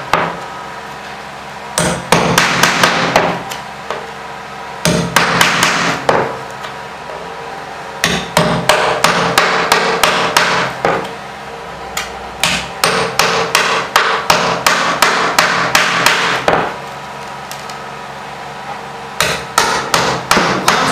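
Hammer blows driving a chisel into a kitchen worktop to cut out the opening for a gas cooktop: quick runs of sharp strikes, about four a second, in bursts of one to four seconds with short pauses between.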